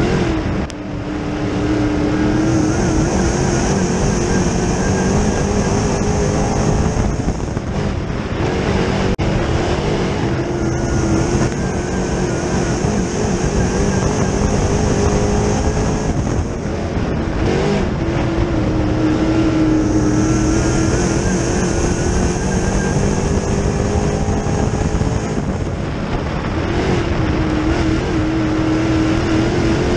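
Dirt late model's GM 604 crate V8 at racing speed, heard from inside the car's cockpit. The revs climb along each straight and drop sharply as the driver lifts for the turns, about every eight to nine seconds.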